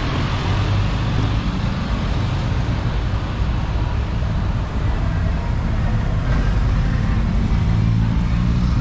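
City bus engine running close by in street traffic, a steady low hum that grows stronger in the second half.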